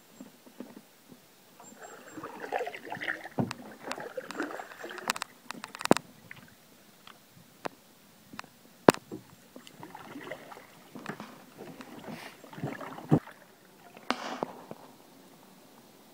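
Paddle strokes splashing and dripping in the water from a plastic canoe, with the double-bladed paddle knocking sharply against the hull several times, the loudest knock about nine seconds in.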